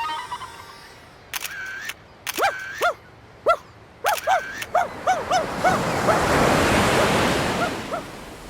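Cartoon sound effects: a small dog's quick yaps in short runs, several sharp clicks before them, and a wave rushing in and fading near the end.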